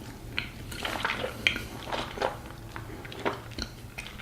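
Eating sounds from a spoonful of black sesame ice cream: scattered soft clicks and taps, with a low steady room background.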